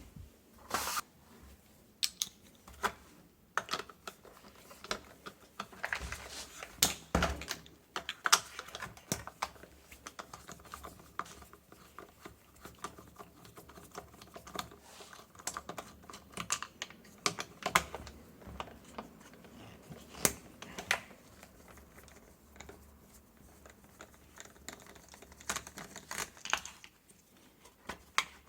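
Irregular light clicks and taps of hand tools, screws and plastic housing parts being handled while a small Homelite string trimmer is taken apart down to its carburettor.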